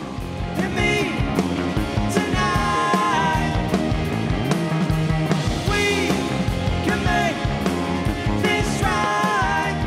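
Rock band music with electric guitars.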